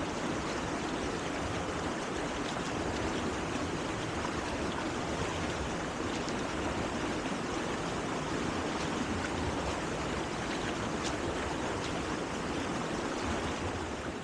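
Waterfall rushing steadily, water charging under ice at the falls, fading out near the end.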